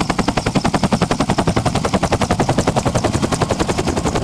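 Helicopter rotor blades chopping in a steady, fast beat of about eleven thuds a second.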